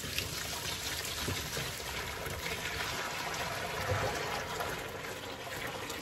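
Homemade liquid laundry soap pouring from a cooking pot into a plastic basin, a steady splashing pour that thins to a trickle near the end.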